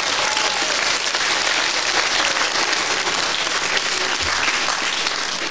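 Theatre audience applauding, dense and steady.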